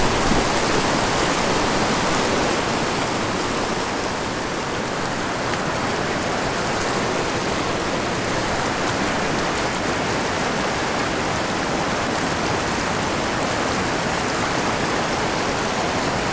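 Fast river water rushing over rocks and boulders through a riffle: a loud, steady, even rush.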